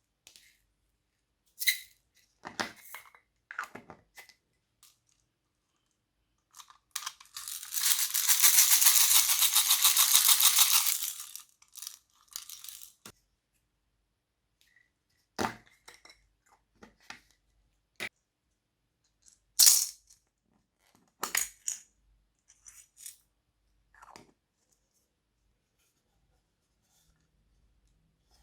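Small hard pieces poured into a container in a dense rattle lasting about four seconds, with scattered clicks and taps of containers and tools before and after it.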